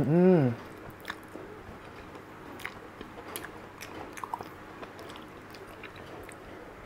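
A brief hum rising then falling in pitch, then mouth sounds of eating soft, creamy durian flesh: wet chewing with scattered lip smacks and clicks.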